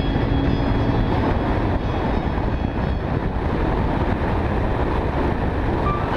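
Strong wind buffeting the microphone: a loud, steady, low rumbling rush with no distinct tones.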